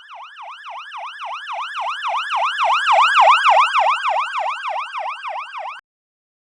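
Ambulance siren in a fast yelp, rapid up-and-down pitch sweeps about four or five times a second, swelling to its loudest midway, then fading and cutting off shortly before the end.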